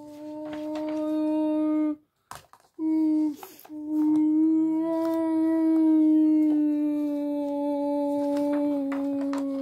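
A child's voice holding one long, steady hummed or sung note, broken by a breath about two seconds in and again near three seconds, then held for about six seconds, sinking a little in pitch near the end.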